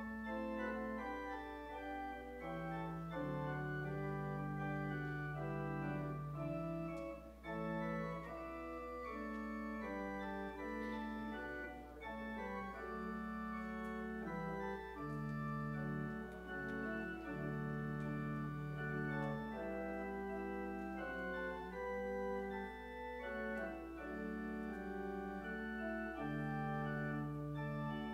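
Church organ playing slow, sustained chords in a hymn-like piece, with no singing.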